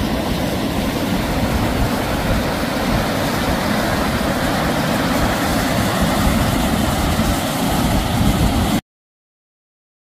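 Stream water rushing and churning over and between rocks in a rocky cascade, a steady loud rush that cuts off suddenly about nine seconds in.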